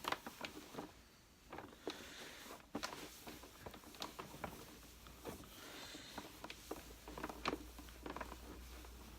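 Faint rubbing and wiping of a cloth on the plastic casing of a Hoover Senior Ranger U4002 vacuum cleaner, buffing off residual cutting compound, with scattered light clicks and taps of handling.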